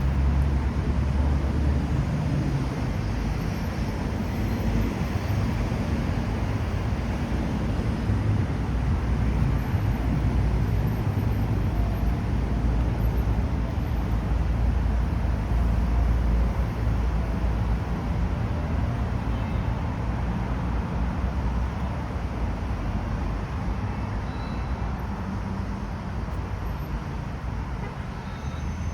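Outdoor city ambience: a steady low rumble of road traffic that swells and eases over several seconds.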